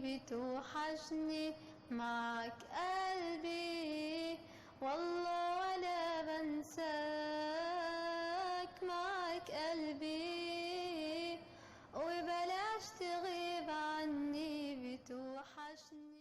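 A girl singing an Arabic song alone, with no accompaniment heard. She holds long, drawn-out notes with a wavering vibrato, broken by short breaths.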